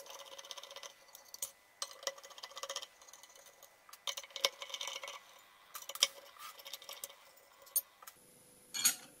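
Screwdriver unscrewing small screws from a metal bracket plate: irregular small metallic clicks and ticks, with a louder clink near the end as the loosened plate is shifted.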